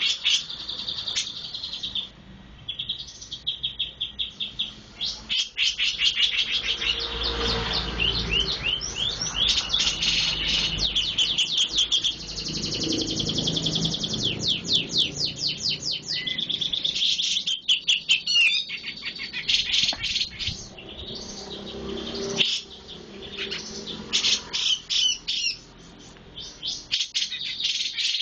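A songbird that Indonesian keepers call a 'jenggot' bird singing continuously in fast, high-pitched chirp series and trills, in the quick, thin 'cabe' (flowerpecker-like) style, with only brief pauses.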